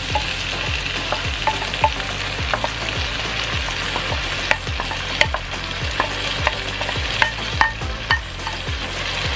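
Onion and bell peppers sizzling in hot oil in a wok as a dark soy-based sauce is poured in, with scattered small crackles and pops. A regular low thump sounds about twice a second underneath.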